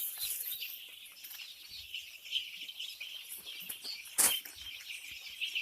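A flock of five-day-old chicks peeping constantly, many high chirps overlapping. A single sharp click about four seconds in.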